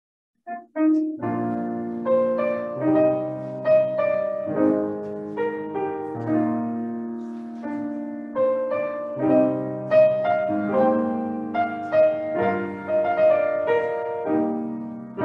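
Grand piano playing an offertory piece, entering about half a second in with a few single notes and then full chords that ring and overlap.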